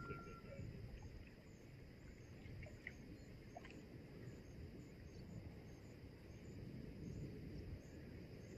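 Faint outdoor background: a low steady rumble with a thin high hiss above it and a few faint short chirps, about three and three and a half seconds in.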